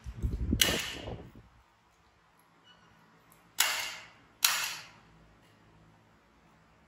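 Handling and rustling noise for about the first second and a half, then two sharp snaps just under a second apart as a nail clipper closes on a baby macaque's nails.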